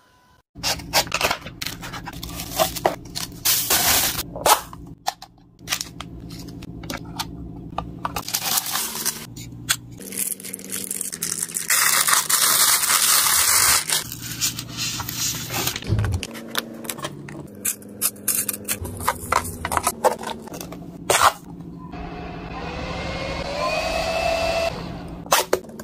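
Handling sounds of small plastic gadgets, with clicks, taps and scrapes over quiet background music. About twelve seconds in, a rasping two-second peel as the clear backing comes off a rhinestone sheet; near the end a rising whine as a small handheld fan spins up.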